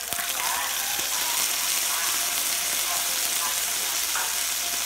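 Hida beef sizzling steadily on a tabletop yakiniku grill: a continuous frying hiss.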